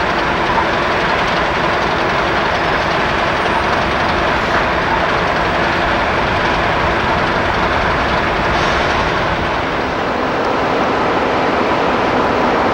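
Train running past on the rails: a loud, steady rush of wheel and track noise.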